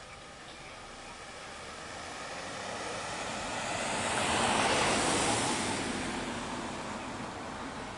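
A passing vehicle: a rush of noise that swells slowly to its loudest about halfway through, then fades away.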